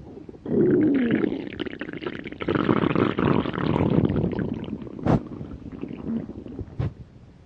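Stomach growling: a loud, long gurgling rumble that starts about half a second in and fades over the next few seconds. Two short sharp clicks come near the end.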